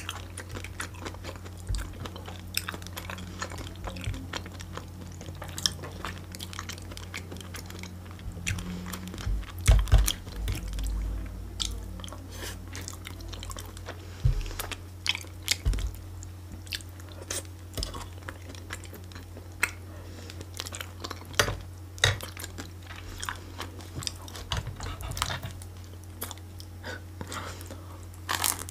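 Close-miked chewing and biting of food, with many small mouth clicks and crunches over a steady low hum. There are a few louder knocks about ten seconds in.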